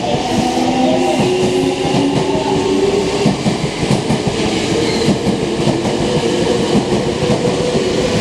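Semboku Rapid Railway 7000-series electric train pulling out and gathering speed. Its traction motors whine, rising in pitch in steps, and the wheels clack over the rail joints.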